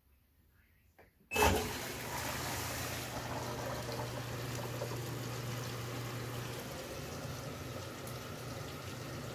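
Magic Chef portable washer filling: after near silence, water suddenly gushes into the tub about a second and a half in and keeps pouring in steadily, with a steady low hum underneath.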